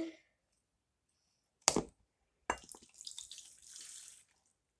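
Water poured from a drinking glass into a bowl of crushed crackers, a short trickle and splash lasting about a second and a half around the middle. It is preceded by a single sharp knock.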